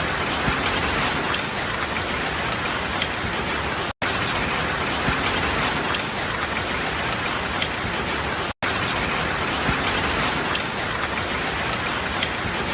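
Steady rain falling, with scattered sharp drop ticks over an even hiss. The sound cuts out for an instant twice, about four and eight and a half seconds in.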